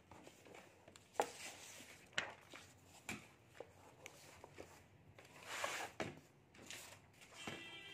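Faint handling noises of paper and a book on a desk: a few light taps or knocks in the first three seconds, then a paper rustle about five and a half seconds in.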